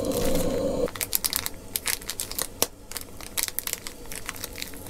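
Rapid, irregular crinkling and crackling of food packaging being handled and torn open. A steady hiss at the start cuts off abruptly about a second in.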